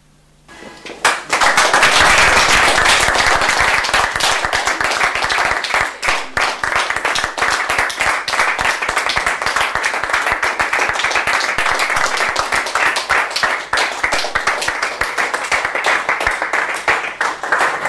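A room of guests clapping. The applause starts suddenly about a second in and carries on loud and steady.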